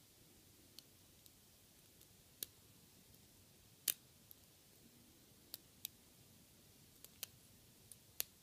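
Faint, irregular clicks of a Nessie lock pick working the pin stack of a brass Yale 110/40 padlock held under tension, with a sharper click about four seconds in and another near the end.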